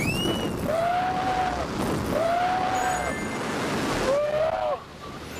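Wind rushing past during a skydiving freefall. Over it come three long, high-pitched tones of about a second each, after a short rising glide at the start.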